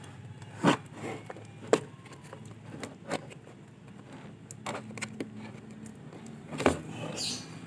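A few sharp plastic clicks and knocks, spread out, as a pressure washer's plastic housing is handled and a wire connector is worked loose from its power switch, with a short high squeak near the end.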